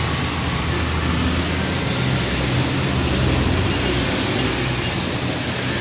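Steady background rumble under a constant hiss, with a low drone that swells slightly around the middle.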